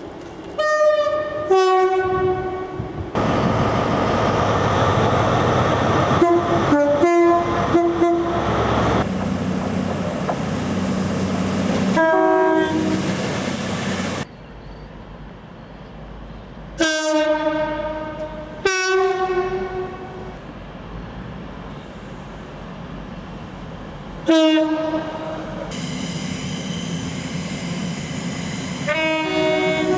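Train two-tone horns sounding again and again, each sounding a high note followed by a low one, about seven times across a series of separate clips. In between, trains run past with heavy rail noise, and a high steady whine comes in for several seconds midway.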